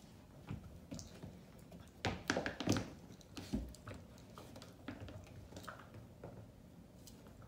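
A puppy playing with a rubber chew toy on a mat: scattered light taps and clicks of teeth, claws and toy. A louder cluster of knocks comes about two to three seconds in, followed by a single dull thump.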